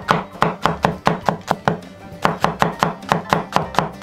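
Cleaver slicing an onion into strips on a wooden cutting board: quick, even chops about five a second, with a short pause about halfway.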